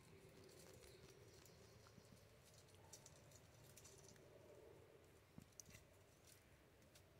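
Near silence: a faint low hum with scattered small soft rustles and ticks from a hedgehog foraging in grass.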